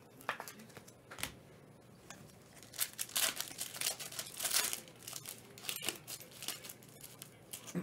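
Foil trading card pack wrapper being torn open and crinkled: a run of short crackling rustles, busiest from about three to five seconds in.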